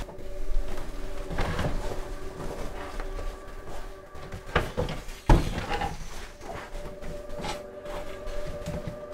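Rummaging in a room: scattered knocks and clatter of things being moved, drawers or cupboards handled, with one sharp knock about five seconds in. A faint steady hum of a few held tones runs underneath.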